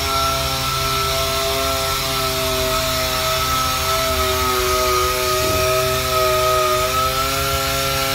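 Power sander running steadily with a high whine over a rushing hiss, its pitch sagging slightly now and then, while sanding a camper van's bodywork to prepare it for paint.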